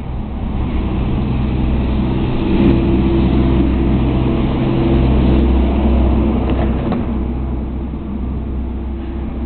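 A motor running: a steady low drone with several held tones, a little louder in the middle.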